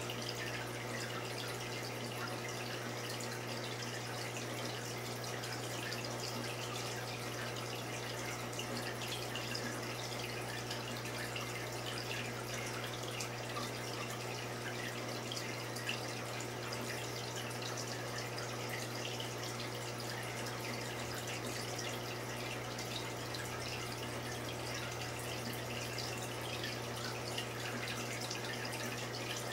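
Saltwater aquarium's water circulation: steady trickling and dripping water over a low, steady hum.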